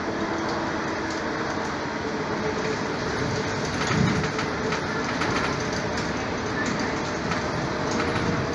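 Steady running noise inside a moving vehicle: a constant hum with light clicks and rattles scattered through it.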